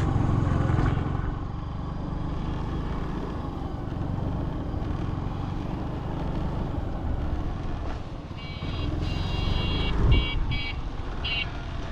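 Yamaha Street Rally scooter's engine running with road and wind noise as it rides. From about eight seconds in, a vehicle horn honks in a long toot followed by several short ones, with a single thump in between.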